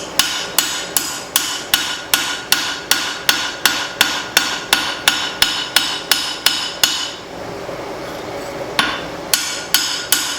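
Hand hammer forging a leaf-spring steel cleaver blade on the anvil, drawing out the edge: a steady run of ringing blows about three a second, which stop for nearly two seconds around seven seconds in and then start again.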